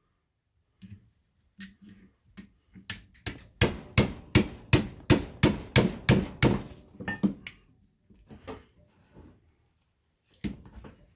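Hammer blows on a steel-cased ballast, knocking its copper winding loose. A few scattered strikes come first, then a quick run of about three a second for some four seconds, then it tapers off, with one last blow near the end.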